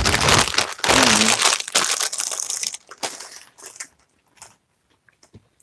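Plastic chip bag crinkling and crackling as it is handled, for about three seconds, then only a few faint clicks.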